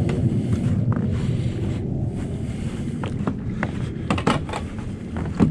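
Wind rumbling and buffeting on the microphone, with scattered light clicks and knocks that come more often in the second half.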